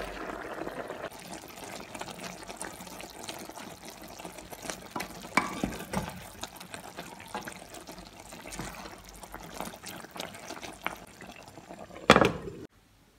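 Shrimp and spinach in coconut milk bubbling in a frying pan, with crackling and scattered knocks as a wooden spatula stirs. A glass lid is set on the pan with a loud clank near the end.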